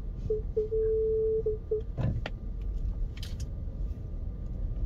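Electronic alert chime from a NIO electric SUV's dashboard: two short beeps, one longer tone and two more short beeps, followed by a few sharp clicks, over low road rumble in the cabin. It marks the assisted-driving mode dropping out.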